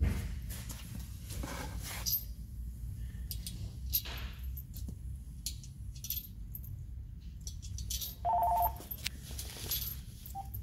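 Small metallic clicks and clinks of copper sealing washers and nuts being handled and set onto the studs of a rear axle's third member, over a steady low shop hum. About eight seconds in, a short two-tone electronic beep is the loudest sound.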